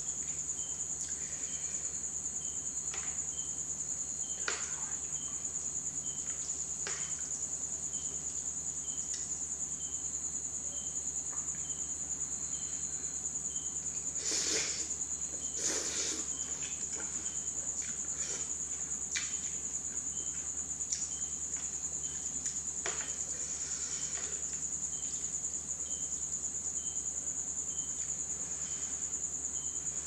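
Eating a bowl of instant noodles with vegetables, using plastic chopsticks: scattered clicks and chewing, then two noodle slurps about halfway through. A constant high-pitched trill runs underneath.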